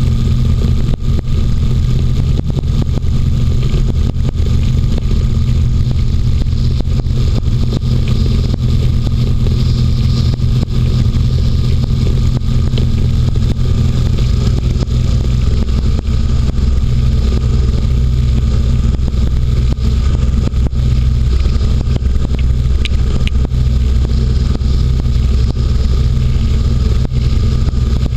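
Inflatable hovercraft's engine and caged propeller running steadily as it travels over snow, loud and continuous; the engine note changes about halfway through as the craft slows.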